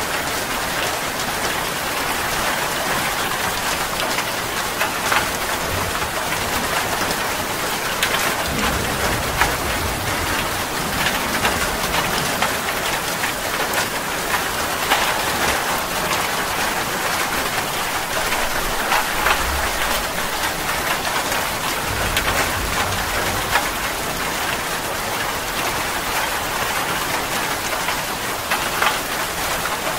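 Steady rain falling, with individual drops ticking. Low rumbles of distant thunder come in a few times.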